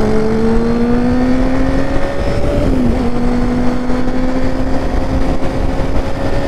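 Sport motorcycle engine pulling under acceleration, its pitch climbing slowly and dropping with an upshift about two and a half seconds in. Wind rushes over the rider's microphone.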